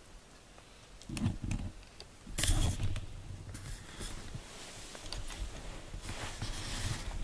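Quiet handling noises while a cat teaser wand is played with: light ticks and rustles, a muffled bump about a second in, and a louder rustle about two and a half seconds in.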